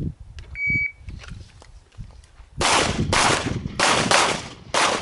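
An electronic shot timer gives one short start beep. About two seconds later a handgun fires a string of about five shots in quick pairs, each with a short echo.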